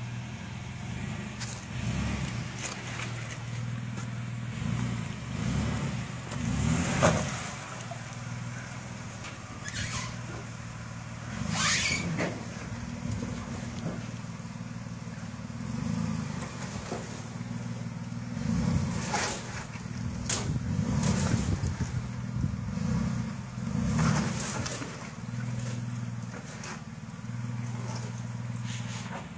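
Jeep Liberty's engine running at low revs while crawling over creek rocks, swelling briefly every few seconds. Scattered sharp knocks are heard over it.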